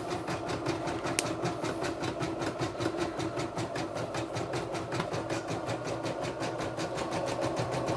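CNY E960 computerised embroidery machine stitching out a design, its needle running at a rapid, even rhythm of stitches.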